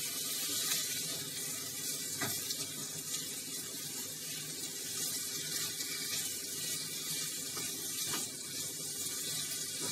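Vegetables sautéing in oil in a nonstick frying pan, sizzling steadily as they are stirred with a silicone spatula, with a couple of faint taps of the spatula against the pan. Freshly blanched broccoli and green beans have just gone in and are still giving off moisture.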